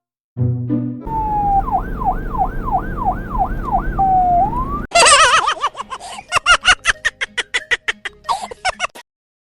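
Electronic police-style siren, set off as a prank: a falling tone, then a fast up-and-down yelp over a low rumble. After a break about five seconds in, a louder sweeping siren turns into rapid pulses, several a second, and stops about nine seconds in.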